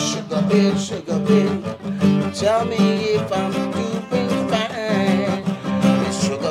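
Acoustic guitar strummed in a steady rhythm while a man sings over it, his voice sliding between notes with no clear words.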